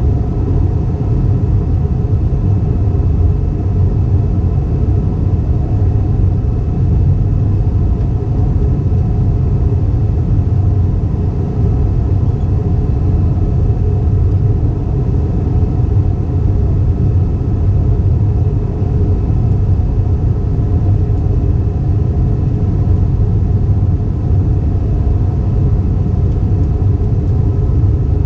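Airbus A320 cabin noise: a steady, even drone of the jet engines and the rush of air past the fuselage, heavy in the low end, with faint steady whine tones over it.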